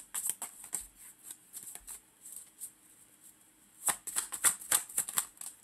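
A deck of cards being shuffled by hand. Scattered card flicks come first, then a quick, dense run of shuffling clatter about four seconds in.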